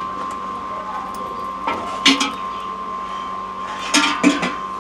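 Metal ladle clinking against a cooking pot, four short knocks in two pairs about two seconds apart, over a steady high-pitched whine.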